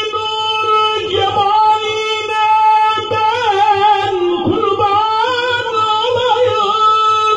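A man chanting a Turkish mevlid, unaccompanied, into a microphone. He holds long notes and bends them with wavering melismatic turns in the middle of the phrase.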